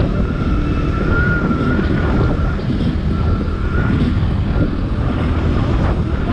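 Motorcycle riding at speed: steady engine and road noise with wind buffeting the microphone, and a thin wavering whine that comes and goes over it.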